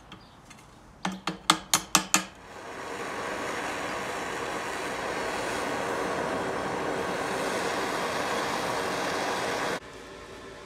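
Harbor Freight wire-feed welder arc: about six short, sharp pops as the arc strikes and stutters, then a steady crackling weld bead for about seven seconds that cuts off abruptly near the end.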